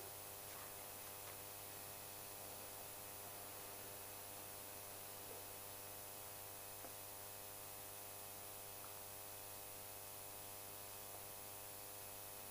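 Steady electrical mains hum with a buzzy row of overtones and background hiss from the recording chain, unchanging throughout.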